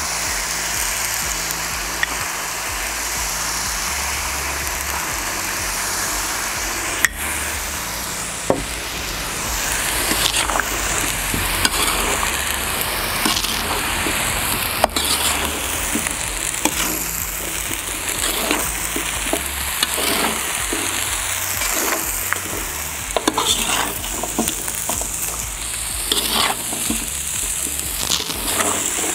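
Duck and vegetables sizzling in hot oil in a kazan. From about ten seconds in, a metal slotted skimmer repeatedly scrapes against the pot as it stirs, with an occasional sharp click.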